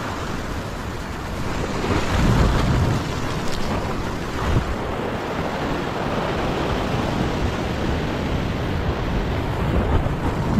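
Ocean swell washing and foaming against a rock ledge, with wind buffeting the microphone; the surge is loudest about two seconds in.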